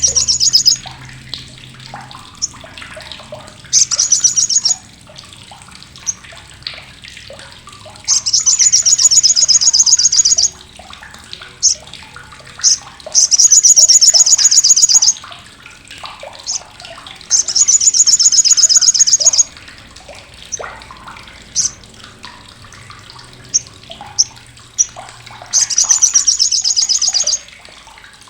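Olive-backed sunbird (sogok ontong) giving its loud, harsh, sharp chattering call. It comes in six fast rattling runs of high notes, several lasting about two seconds, with single short chips in between.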